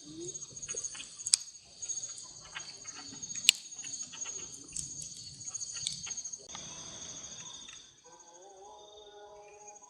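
Steady chorus of night insects, crickets, with scattered small clicks and knocks, two sharper ones about one and three and a half seconds in. Near the end the chorus thins and a low held tone with several pitches comes in.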